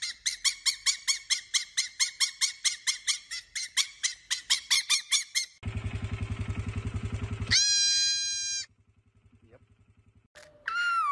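Fennec fox making a rapid run of high chirping calls, about five a second, for roughly five seconds. Then a goat kid bleating: a low buzzing stretch followed by a short, higher held bleat.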